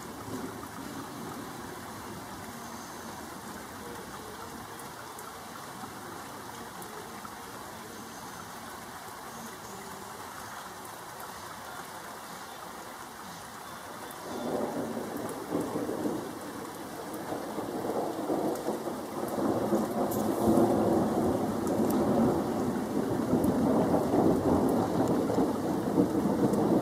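Steady rain, then about halfway through a long roll of thunder begins and grows louder, rumbling on through the rest.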